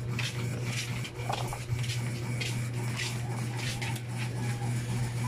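Mouth sounds of eating by hand: chewing with soft smacks and clicks, several times, as fingers work into seafood and rice. A steady low hum runs underneath.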